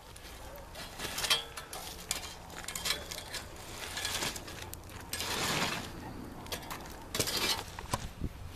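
Metal garden rake dragging through hot charcoal and embers, spreading them out: a series of rasping scrapes with the coals clinking, the longest stroke about five seconds in.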